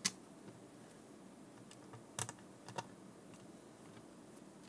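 A few sharp clicks and taps of the hard plastic housing of a Garmin StreetPilot GPS as it is handled and pressed together: one loud click right at the start, a quick pair a little past two seconds in, and another shortly after.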